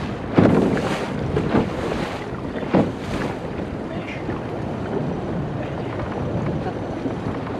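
Wind buffeting the microphone in sudden gusts, three of them loudest in the first three seconds, over the steady low running of a small outboard motor trolling the boat.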